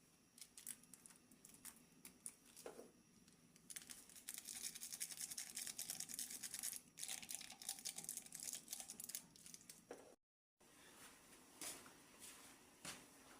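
Fast back-and-forth scrubbing with a brush, close and fairly faint. It is densest in the middle, breaks off briefly about ten seconds in, and then goes on more softly.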